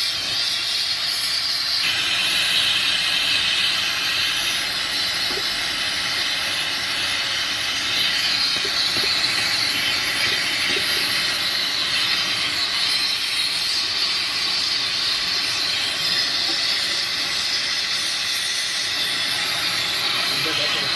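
Welding in progress: a steady hiss that runs on without a break.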